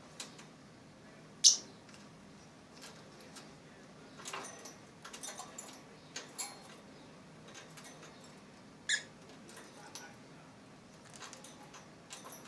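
Lovebirds giving scattered short, high chirps and squeaks, with a sharp loud chirp about a second and a half in and another near nine seconds.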